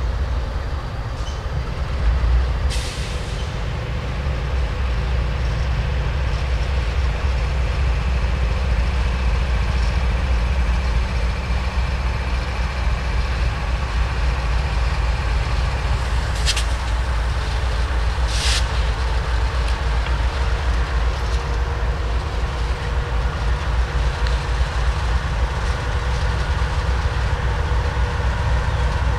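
CSX train rolling past close by: a steady heavy rumble of the railcars on the track, with three short sharp clacks, one near the start and two close together past the middle.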